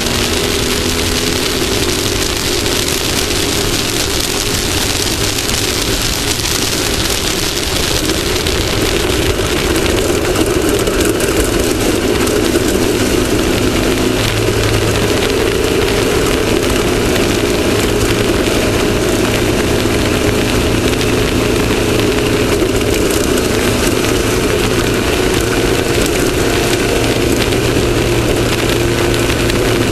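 Off-road race vehicle's engine running steadily under load, its pitch wavering a little, over a constant rushing noise; it gets slightly louder about ten seconds in.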